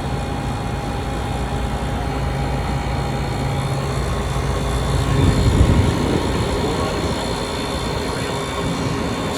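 Commercial refrigeration equipment of a restaurant cook's line running with a loud, steady mechanical hum. About five seconds in, the low hum drops out and there is a brief louder rumble.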